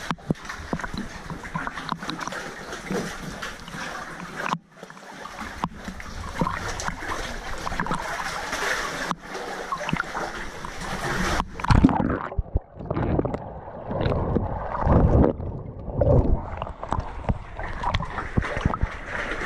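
Sea water splashing and sloshing right at a waterline camera. From about twelve seconds in the sound turns muffled and gurgling, with low thumps, as the lens dips in and out of the water.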